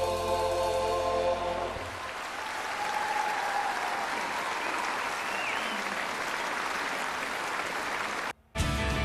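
Choir and piano holding the final chord, which ends about a second and a half in, followed by audience applause. The applause cuts off abruptly near the end, and instrumental music starts.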